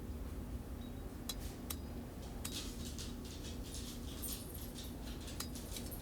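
Light metallic taps and clinks on steel at the anvil as the cut line is marked on the hardy cutter: two single taps, then a quicker run of small clicks from about halfway through, over a steady low hum.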